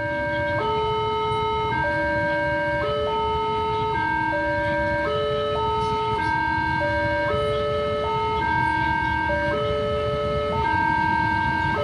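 Railway level-crossing warning alarm sounding, an electronic two-note tone alternating about once a second, the signal that a train is approaching. A low rumble lies underneath.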